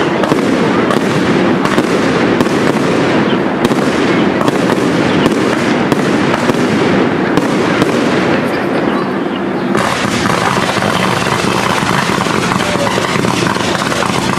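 Cake fireworks firing in rapid succession: a dense, continuous run of bangs and crackling. About ten seconds in the sound changes abruptly to a steadier, more even rushing noise with fewer separate bangs.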